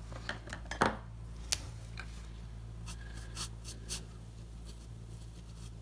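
Marker tip stroking across sketchbook paper: faint scratching with a few sharp clicks and taps from handling the markers in the first second and a half, over a steady low hum.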